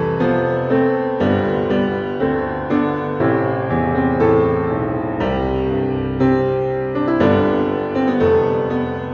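Calm, classical-style instrumental music: a keyboard plays a slow, even flow of struck notes that ring and fade.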